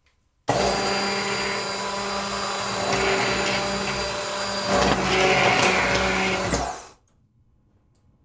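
Handheld immersion blender running in a pot of hot gravy, puréeing the soaked ginger snaps into the sauce: a steady motor tone over liquid churning. It starts abruptly about half a second in and switches off about a second before the end.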